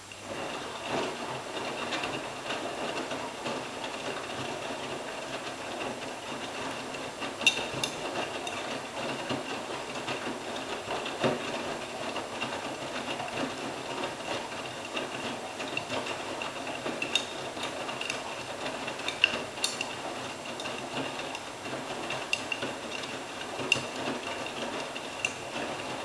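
AEG Öko-Lavamat 86760 front-loading washing machine in its wash phase, the drum turning and tumbling wet laundry through water, with a steady high whine and a few sharp clicks. The drum starts turning at the very beginning, after a pause.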